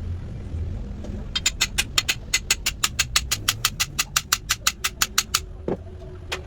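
A rapid, even run of sharp mechanical clicks, about six a second, lasting about four seconds, followed by two single knocks near the end, over a steady low rumble.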